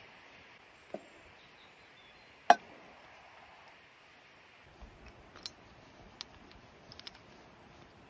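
A few sharp knocks and clicks: a light knock about a second in, a much louder knock about two and a half seconds in, then a scatter of lighter clicks, over a faint steady hiss.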